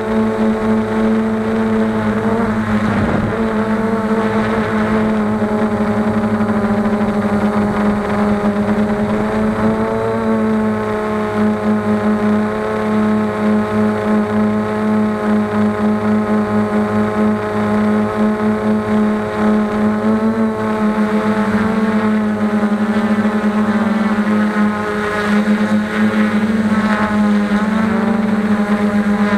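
Quadcopter's four Emax MT2216 brushless motors and propellers running in flight, a loud steady buzzing hum whose pitch wavers a little as the flight controller adjusts motor speed. The sound is picked up by the camera mounted on the drone.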